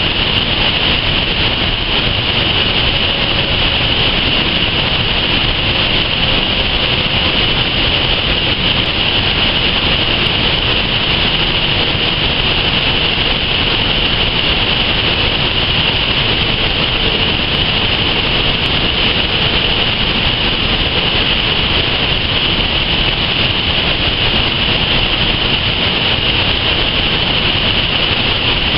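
Loud, steady rush of river water tumbling through a rocky gorge, unbroken throughout.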